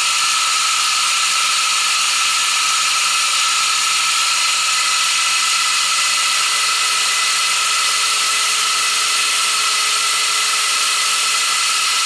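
Milling machine running steadily: a constant, unchanging hiss with a steady whine through it.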